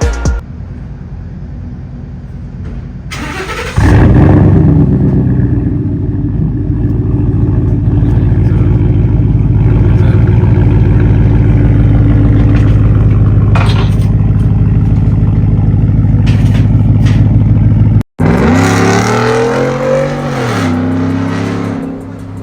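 Straight-piped car exhaust, run straight from the headers with the resonator deleted, running with a deep, loud, steady rumble. Near the end it is revved, its pitch rising and falling.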